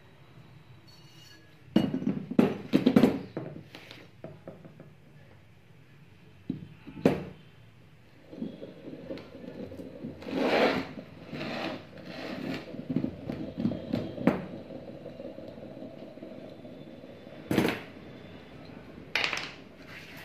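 Metal ceiling-fan motor parts being handled and fitted together: a cluster of clanks and knocks about two to four seconds in, then scraping and rattling as the motor's body half is worked down over the wound stator and shaft, with single sharp knocks now and then.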